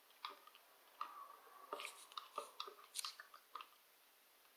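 Fingers kneading and stirring sticky homemade slime in a plastic bowl: faint, irregular squishes and small clicks.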